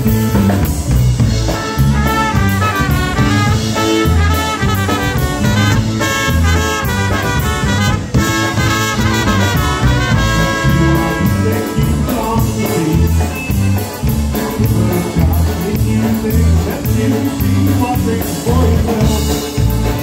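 Live polka band playing: two trumpets carry the melody over a Star Chemnitzer concertina, electric bass and drum kit keeping an oom-pah beat. The horn line is strongest in the first half and thins out after about twelve seconds.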